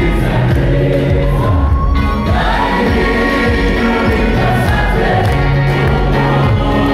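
Church choir singing a gospel song in Kinyarwanda over instrumental backing with a moving bass line.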